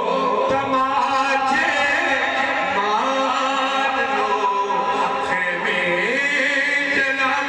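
A man's voice singing a devotional recitation into a handheld microphone, with long held notes that waver and turn in ornamented runs, carried through a loudspeaker.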